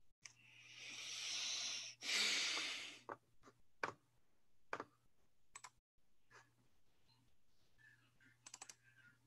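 Faint clicks of a computer mouse and keyboard being worked, spread over several seconds with a quick run of clicks near the end. Two soft rushes of noise come in the first few seconds.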